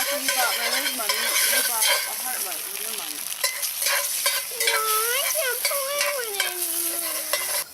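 Breakfast food (bacon and eggs) sizzling and frying over a campfire, a steady crackling hiss. A few wavering pitched sounds ride over it, loudest about five to seven seconds in.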